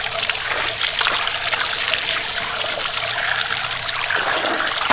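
Tap water running steadily onto a raw pork leg and splashing into a metal basin as hands scrub and rinse the meat.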